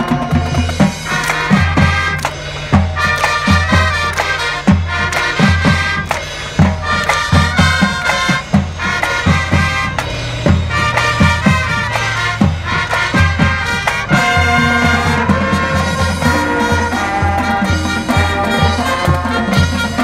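Marching band playing, brass over a drumline's steady beat.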